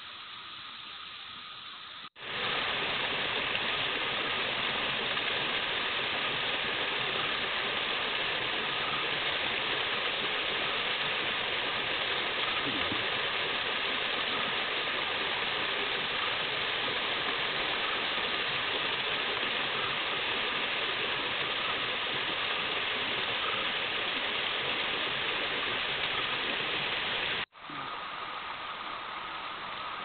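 Small forest stream splashing down a little rocky cascade: a loud, steady rushing of water. It starts abruptly about two seconds in and cuts off a few seconds before the end, with a quieter flow of water on either side.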